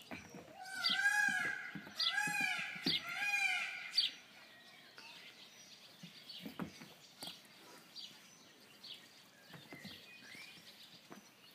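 Three loud animal calls about a second apart, each rising and then falling in pitch. They are followed by faint, scattered chirps.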